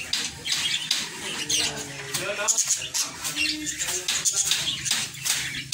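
Budgerigars chirping and chattering: a dense stream of short, high chirps.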